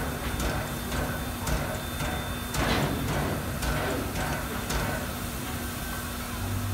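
SNCF 141 R steam locomotive on a turntable: a steady hum with soft knocks about once a second and a short louder rush of noise a little before the middle.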